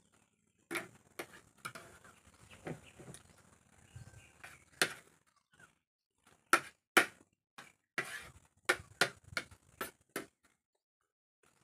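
Eating sounds: chewing for the first few seconds, then a metal spoon and fork clinking and scraping on a plate, with several sharp clinks in quick succession.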